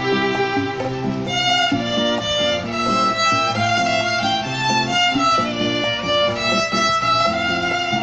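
Violin bowed continuously, playing a melody of quick and held notes, with lower notes sounding beneath the melody.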